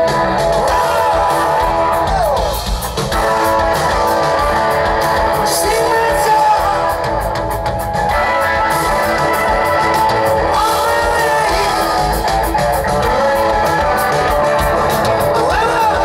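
Rock band playing live and loud, an electric guitar to the fore with notes that slide up and down, over drums.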